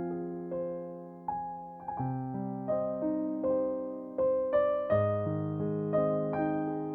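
Background music: a gentle electric piano playing a slow melody over chords, each note struck and fading.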